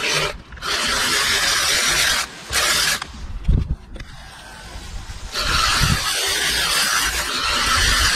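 Hedge trimmer running, its blades cutting through conifer foliage in short stretches. It stops for about two seconds after three seconds in, then runs steadily again.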